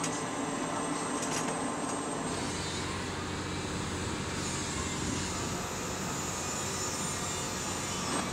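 Steady outdoor flight-line noise: an even hiss and hum of distant aircraft engines running, with a faint high steady whine.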